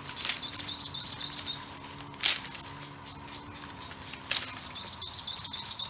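Pineapple leaves being torn off the plant by gloved hands, with a sharp snap about two seconds in and a smaller one about two seconds later. A bird gives a rapid series of high chirps twice, at the start and near the end.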